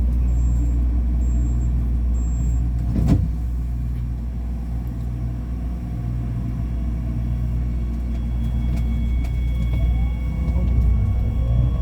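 Ui-Sinseol light-rail train at a station: three short high beeps of the door-closing warning, then a single clunk about three seconds in as the doors shut. Over a steady low rumble, a rising whine starts near the end as the train pulls away.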